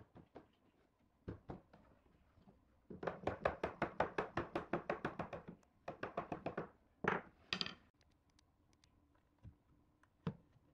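Wooden mallet knocking on a wooden door frame, tapping a mortise-and-tenon joint together. A few single knocks, then a fast run of taps, about six a second, for over two seconds, a shorter run, and two harder blows, with one more knock near the end.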